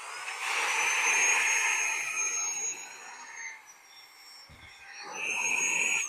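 xCool cordless handheld vacuum cleaner running with its crevice tool: a high, slightly wavering motor whine over a rush of suction air. The air noise is loud at first, drops in the middle and swells again near the end as the nozzle is worked along the couch seams.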